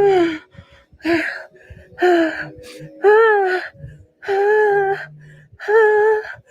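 A woman's voice moaning in short, high-pitched, breathy cries, about six in a row, roughly one a second, with gasping breaths between them.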